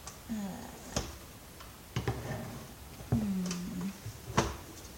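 Hard plastic parts of a Dirt Devil upright vacuum cleaner being handled during disassembly: four sharp clicks and knocks about a second apart, the last the loudest.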